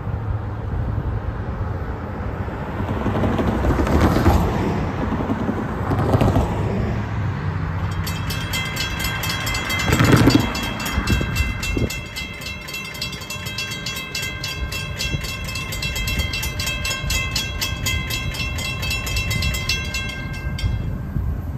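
Railroad grade-crossing warning bell starting up about a third of the way in, ringing rapidly and evenly, then cutting off abruptly near the end as the gates come down: the crossing has activated for an approaching train. Before that, cars pass over the crossing, one loudly about halfway.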